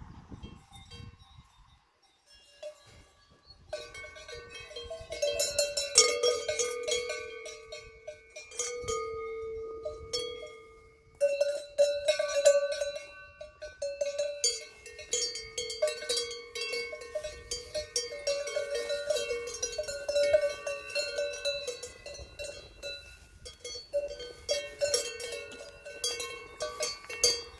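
Bells on grazing cows' collars clanking and ringing irregularly as the cows move their heads. The bells are quieter at first and pick up into steady clanking about four seconds in.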